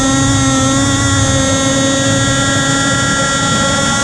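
Zenoah single-cylinder two-stroke gas engine of an Enforcer Stingray RC hydroplane running at a steady, held throttle, heard from on board, with water rushing past the hull.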